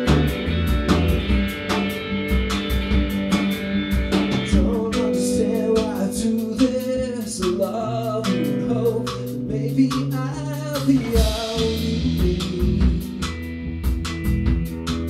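A band playing a song on guitar and drum kit, with a singing voice through the middle.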